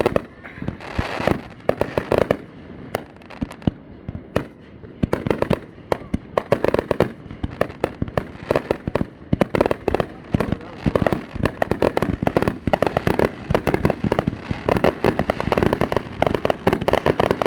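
Fireworks going off in a rapid barrage of bangs and crackling reports. The reports come thicker and almost continuous from about halfway through.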